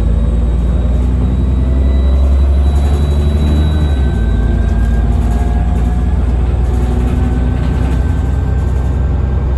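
Cummins ISBe diesel engine of a Transbus Trident bus running under way with a heavy low drone and thin high steady whistles typical of turbo whine. The engine note shifts about four seconds in.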